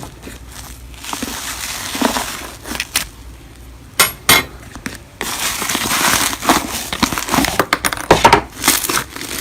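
Crunchy slime being squished and pressed by hand, giving crackling and popping. Two sharp pops come about four seconds in, then the crackling turns dense and continuous.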